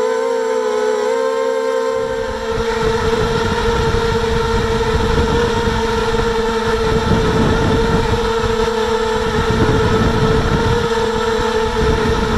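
Miniquad's brushless motors and propellers whining steadily at a near-constant pitch, heard close up from the arm. About two seconds in, a rough low rumble joins the whine.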